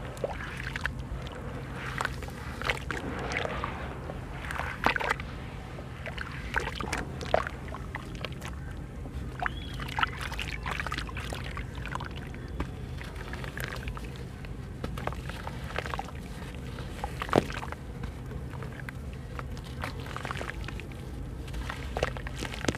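Hands sloshing and splashing in a basin of water while crumbling and dipping soaked chunks of sand-cement, with irregular sharp splashes and drips as wet crumbs fall back in; one splash about 17 seconds in is the loudest. A steady low hum runs underneath.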